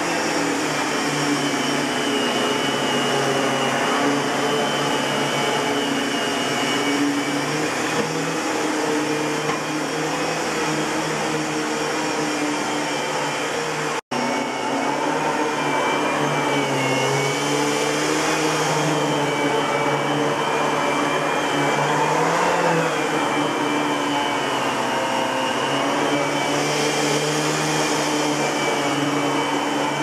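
Kenmore Progressive canister vacuum running on carpet: the Panasonic blower motor in the canister with the Ametek-motored power nozzle's brush roll turning. A steady motor whine and rush of air, whose pitch wavers slightly in the second half, with a momentary dropout about halfway through.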